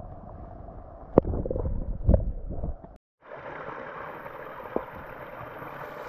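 Muffled churn of a small mountain stream picked up by a camera held underwater, with a sharp knock about a second in and heavier bumps near two seconds. About three seconds in the sound cuts out briefly, then the stream's running water comes back steady and clearer.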